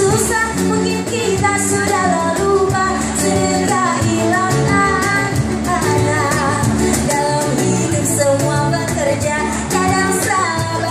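A woman singing a religious acoustic-pop song into a microphone, backed by guitars and a cajon, amplified over PA speakers. Her melody wavers with vibrato over held bass notes and a steady light beat.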